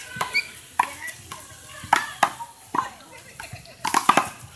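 Small rubber handball slapped by hand and hitting the wall and court surface in a fast rally: a string of sharp slaps and knocks, about seven in four seconds, with two close together near the end.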